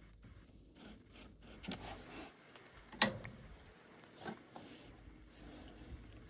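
Faint rubbing and clicking as a furnace is handled and worked on, with a few light knocks and one sharp knock about three seconds in.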